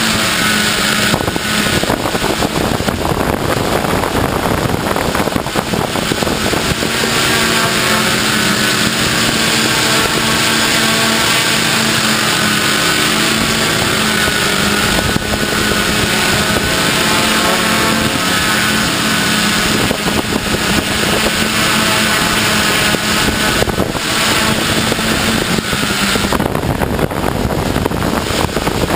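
Small multicopter camera drone's electric motors and propellers running, a steady buzzing hum whose pitch wavers slightly as it flies.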